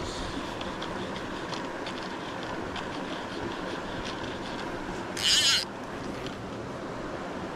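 Steady rushing of a shallow river flowing over stones, with one brief, loud, high-pitched sound about five seconds in.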